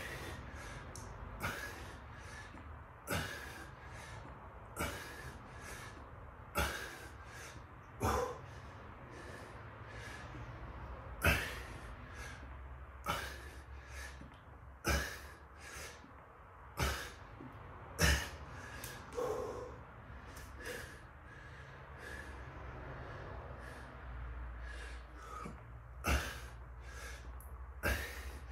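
A man breathing hard through a set of push-ups, with a sharp, forceful exhale on each repetition, about one every one and a half to two seconds.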